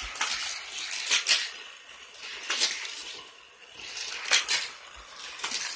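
Light clicks and clacks of plastic Hot Wheels track parts, a few short sharp knocks at irregular intervals.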